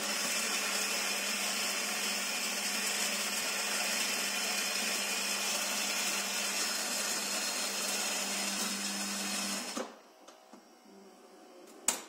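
Saeco X-Small coffee machine's built-in grinder grinding beans: a loud, steady grinding noise over a steady hum, which stops suddenly about ten seconds in. A much quieter stretch follows, with one sharp click near the end.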